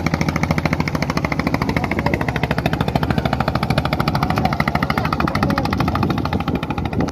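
Engine of a motorized wooden country boat running steadily under way: a loud, rapid, even chugging.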